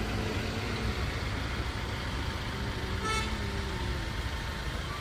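A motor vehicle's engine running with a steady low rumble, and one short vehicle horn toot about three seconds in.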